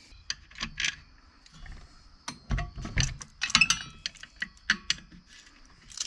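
Scattered clicks and small clinks, with a couple of dull knocks about two and a half to three seconds in, as a screwdriver works at the Phillips screws in the housing of an old Black & Decker circular saw.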